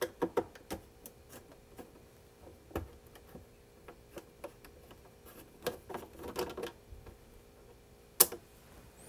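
Small screwdriver backing a screw out of the plastic cover of a 1990s Husqvarna sewing machine: a run of light, irregular clicks and ticks, with one sharper click near the end.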